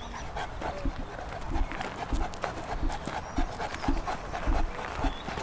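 St Bernard panting quickly and evenly, with footsteps crunching on gravel.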